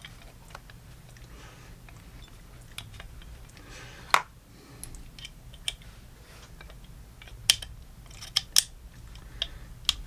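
Scattered small metal clicks and taps from a .22 single-action revolver as its cylinder is put back into the frame with the hammer at half cock, one sharp click about four seconds in and a run of clicks near the end.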